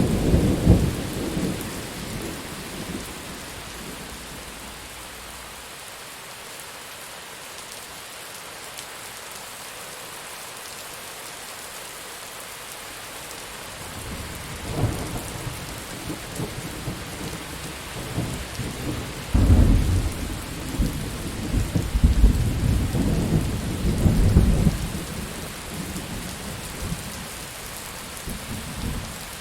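Steady heavy rain with rolling thunder: a rumble dies away in the first few seconds, then a second long peal builds about halfway through, is loudest in the last third, and fades out near the end.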